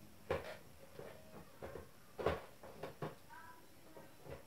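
Monitor stand being fitted onto the back of an Acer KA270H monitor: a few short knocks and clicks as the parts are pressed together, the loudest about two seconds in.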